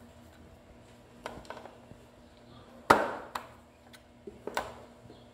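A spoon knocking and scraping against a baking pan while spreading mashed potato: a few scattered knocks, the loudest a sharp clank with a short ring about three seconds in.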